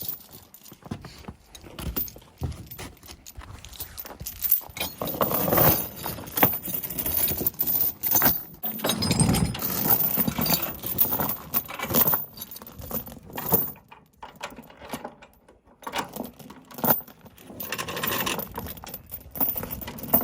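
Steel tie-down chain rattling and clinking as it is handled, with irregular metal clanks.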